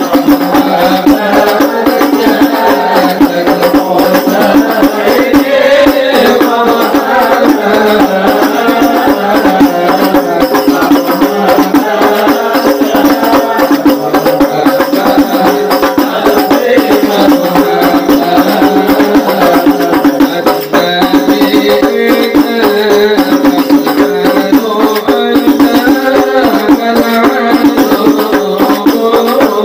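An al-Habsyi ensemble performing a sholawat: a group of voices sings over frame drums played in a fast, steady rhythm.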